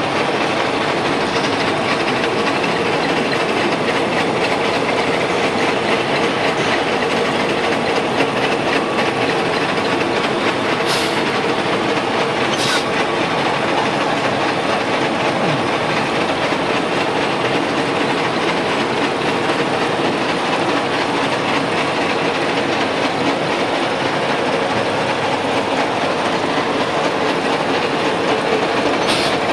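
Vertical milling machine running steadily as a dovetail cutter mills a slot in a fluoroplastic (PTFE) block: an even mechanical hum and rattle from the spindle drive, with a couple of brief high clicks partway through.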